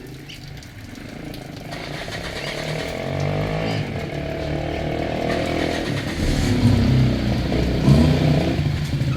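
A motor vehicle's engine running, growing louder over several seconds with its pitch rising and falling, then fading away near the end.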